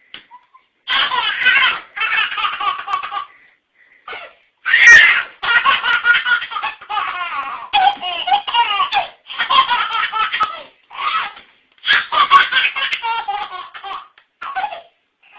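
A baby laughing hard in repeated fits of belly laughter, each bout a second or so long with short breaths between.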